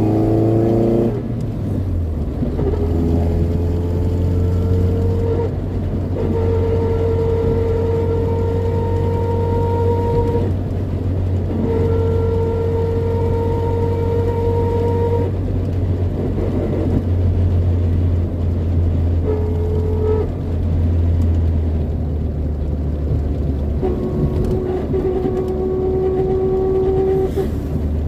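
Toyota 4A-GE twin-cam four-cylinder engine running, with a steady whine that comes and goes in stretches of a few seconds over the engine's hum. The owner does not know what causes it. Near the start, falling tones suggest the revs dropping.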